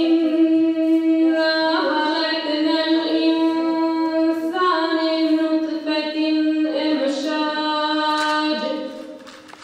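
A choir of young voices singing a Bosnian devotional hymn (ilahija), in long held notes phrase by phrase, fading near the end.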